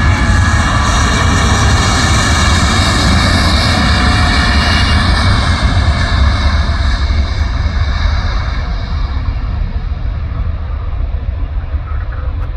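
Boeing 787 Dreamliner's Rolls-Royce Trent 1000 turbofans at takeoff thrust: a loud jet rumble with whining fan tones that fade away, and the high end dies off over the last several seconds as the airliner climbs away.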